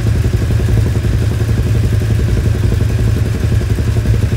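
Kawasaki ZX-10R's inline-four engine idling steadily through its exhaust.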